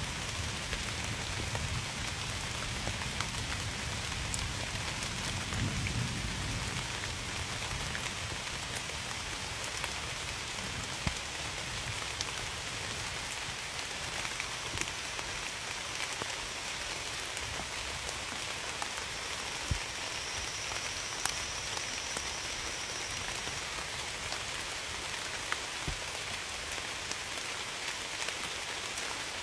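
Steady rain falling, with scattered single drops ticking out of the hiss. A low rumble sits under the rain during the first several seconds.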